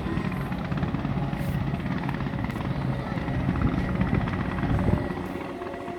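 Fireworks display: a dense, continuous rapid crackling over a low rumble from many bursts together.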